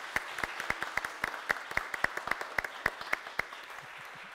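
Congregation applauding, the clapping thinning out and stopping about three and a half seconds in.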